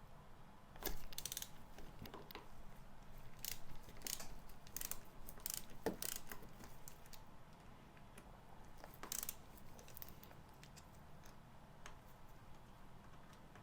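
Faint, irregular metallic clicks and small knocks of hand tools as the clip-on handlebar clamp bolts are undone on the fork legs, with a ratchet-like clicking at times.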